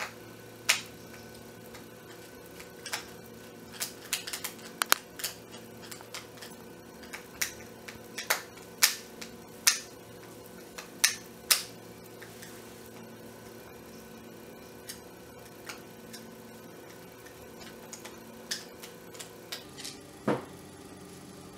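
Scattered sharp clicks and light knocks of a screwdriver turning out the screws of an ORPAT HHB-187E hand blender's plastic housing, with the body handled between turns. The clicks come thickest in the first half and grow sparse later.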